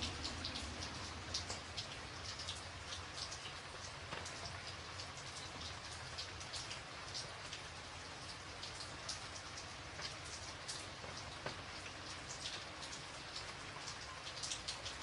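Rain falling steadily: an even hiss with many separate drop hits standing out sharply above it.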